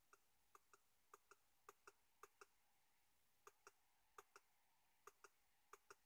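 Faint clicks of a computer mouse button, clicked over and over, each click a quick pair of press and release, about eight in all with a short pause near the middle.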